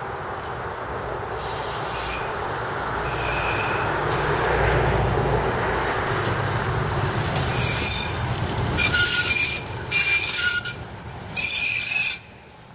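Siemens ULF low-floor tram rolling through a tight curve: wheels rumbling on the rails, with high-pitched wheel squeal in short bursts, two early and four in quick succession in the second half. The last burst cuts off abruptly about 12 seconds in. The squeal is curve squeal from the wheels grinding against the rails on the sharp bend.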